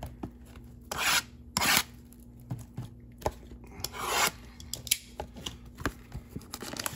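Cardboard trading-card boxes being handled and slid about: three short scraping rubs, about a second in, near two seconds and around four seconds, with light taps and knocks between them.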